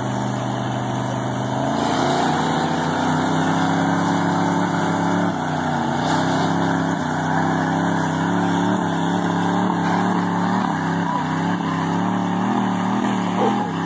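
Lifted pickup trucks' engines revving hard and held under load as they pull against each other in a tug of war, tyres spinning in the grass. The engine pitch rises about two seconds in, holds, and wavers up and down through the second half.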